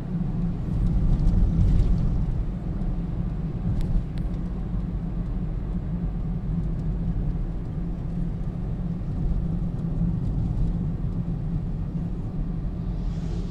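Steady low rumble of a car's engine and tyres on asphalt, heard from inside the moving car's cabin.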